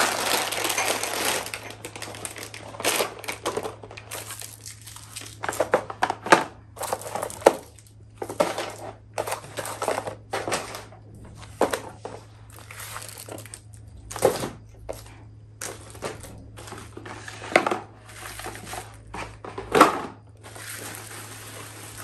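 Plastic grocery packaging rustling in the hands in irregular bursts as packets are picked up and moved, with now and then a knock as an item is set down on the stone countertop.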